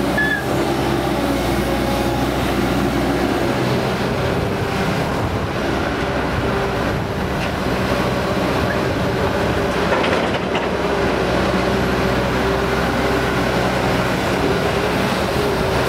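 Caterpillar 312D tracked excavator's diesel engine running steadily as the machine digs.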